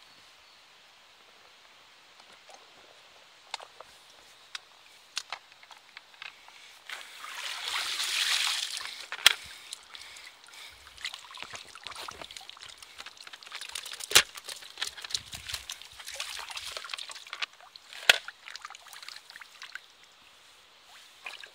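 Water pouring, trickling and sloshing around a perforated plastic fish container at the lake's surface. It is loudest about eight seconds in, and there are a few sharp clicks along the way.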